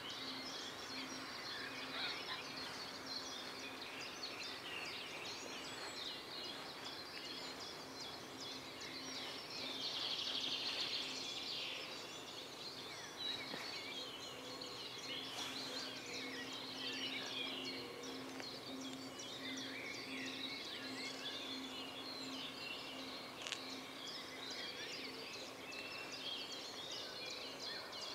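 Songbirds chirping and singing, many short calls overlapping, loudest about ten seconds in, over a faint low steady hum.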